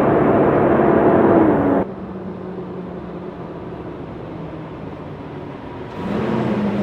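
Freightliner semi-truck driving: a steady engine drone with road noise, louder at first with the engine note sinking a little. About two seconds in it drops abruptly to a quieter, lower drone, then jumps back up to a louder one near the end.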